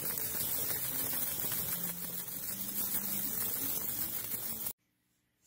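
Steady hiss with a few faint low humming tones, cutting off abruptly about a second before the end.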